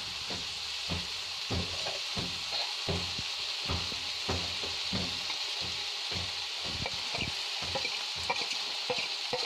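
Rice grains sizzling as they fry in oil in a kadai, the toasting stage before water goes in. A perforated spatula stirs the rice through, knocking and scraping on the pan about twice a second.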